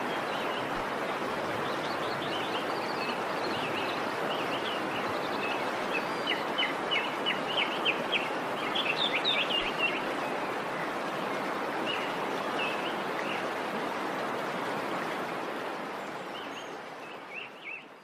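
Waterfall rushing steadily with birds chirping over it, the chirps coming thick and fast around the middle; the sound fades out near the end.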